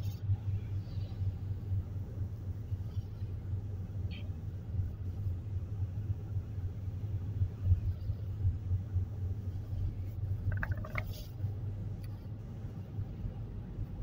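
Steady low road and engine rumble of a car, heard from inside the cabin while driving.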